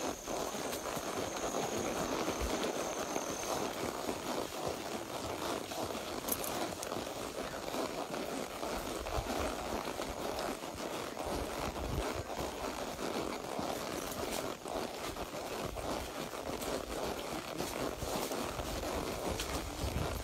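A horse walking along a trail, with irregular hoof steps and steady rustling. Low gusts of wind hit the microphone now and then, and a thin high whine is heard in the first few seconds.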